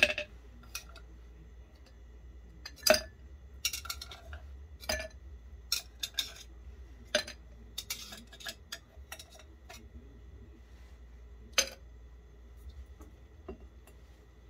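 Square ice cubes set one at a time into a tall Collins glass, clinking against the glass and each other in irregular single clinks about every second, the loudest at the start and about three seconds in.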